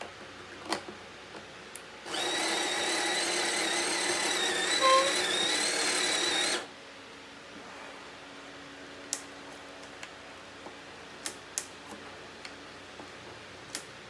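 Built-in conical burr grinder of a De'Longhi La Specialista espresso machine grinding beans into the portafilter: a steady motor whine that starts about two seconds in and cuts off abruptly after about four and a half seconds. Sharp clicks and knocks of the metal portafilter being handled come before and after it.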